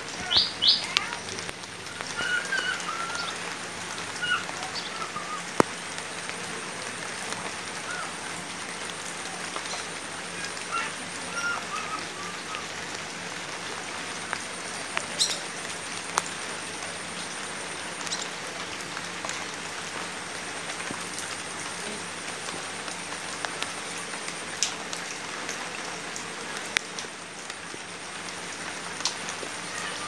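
Light rain falling steadily on standing floodwater and broad banana leaves, a constant hiss with scattered drips. Birds chirp briefly in the first few seconds and now and then until about a third of the way through.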